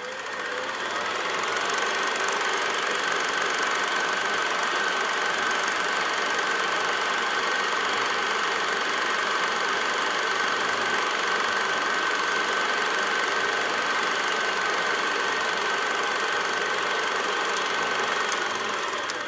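Super 8 film projector running: a steady mechanical clatter with a constant high whine through it, building up over the first second or two and dying away near the end.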